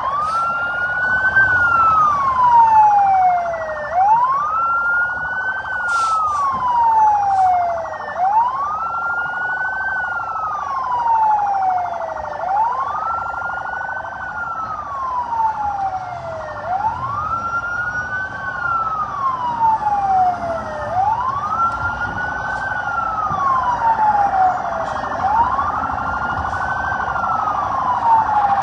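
Police vehicle siren wailing in a slow repeating cycle, rising quickly and then falling away more slowly, about once every four seconds.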